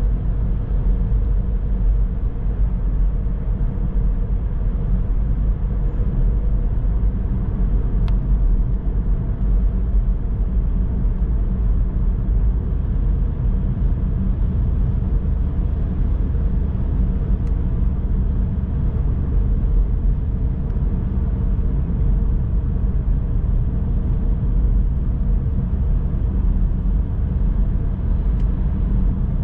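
Car driving along a country road: a steady low rumble of engine and tyre noise.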